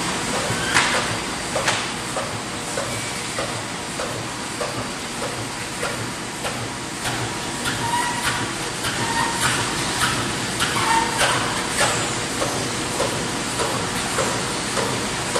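Corrugated-board flexo printing machine running in production: a steady mechanical din with irregular knocks and clacks every second or so.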